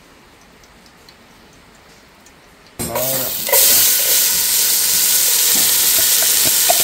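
Chopped onions tipped into hot oil in an aluminium pot start sizzling about three seconds in, sudden and loud, then settle into a steady frying hiss that gets louder again half a second later. Before that there is only a faint quiet.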